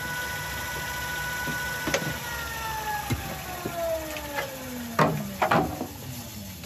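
Wood lathe spinning down after being switched off, its motor whine falling steadily in pitch. A few sharp knocks of tools being handled, the loudest about five seconds in.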